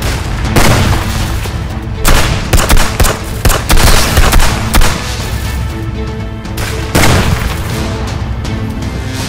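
Action-film background music with a series of pistol gunshots over it: one about half a second in, a quick run of about eight between two and five seconds in, and one more near seven seconds.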